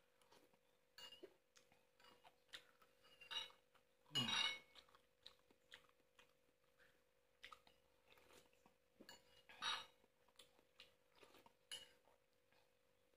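Someone eating boiled noodle soup: a metal spoon tapping and scraping a bowl, soft chewing, and sipping from the spoon, with the loudest slurps about four seconds in and again near ten seconds.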